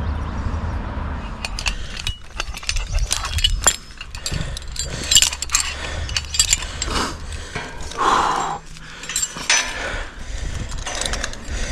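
Irregular metal clicks and clinks of hand tools and hardware being handled, over a low steady rumble that fades after about three seconds.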